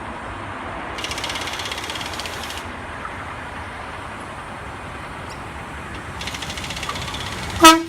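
Sydney Trains OSCAR (H-set) electric multiple unit pulling into the platform, a steady running rumble with two stretches of fast, high-pitched rhythmic ticking. Near the end comes a short, loud, steady-pitched tone, the loudest sound.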